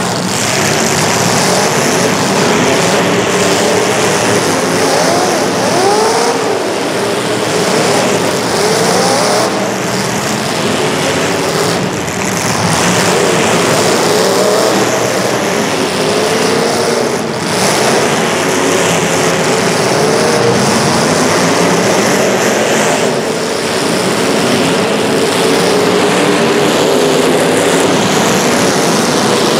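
Several racing engines running together through a race heat, their pitches rising and falling as they rev and ease off, over a steady wash of engine noise.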